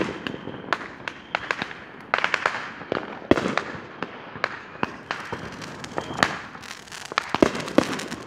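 Consumer fireworks going off: a run of sharp, irregular bangs and crackles, coming thicker near the end.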